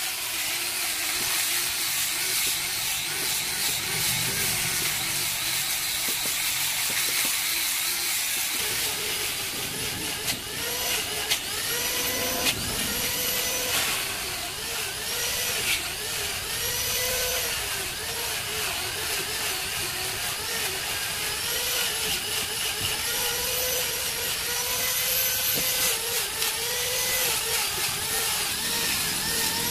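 A power tool's electric motor running steadily throughout, its pitch wavering up and down, with a few sharp clicks in the middle.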